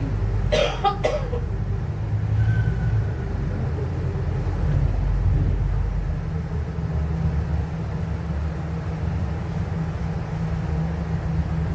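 Scania Unvi Urbis natural-gas double-decker bus driving, heard from the upper deck: a steady low engine and road rumble, with two sharp clacks about half a second and a second in.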